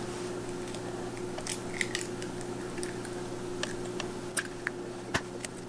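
Eggs being cracked by hand: a few short, sharp cracks and crackles of eggshell, the sharpest about five seconds in.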